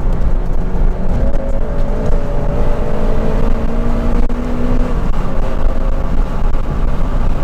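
Inside the cabin of a Honda Civic Type R (FN2) on the move: steady road and tyre rumble with the engine running underneath. A steady engine note comes through from about a second in and drops away about five seconds in.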